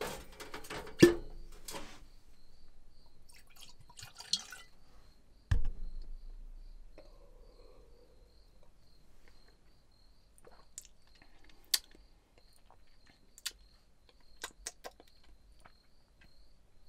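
Whiskey poured from a glass bottle into a ceramic mug in a small room, with a single knock about five and a half seconds in, then quiet sipping from the mug and a few small clicks.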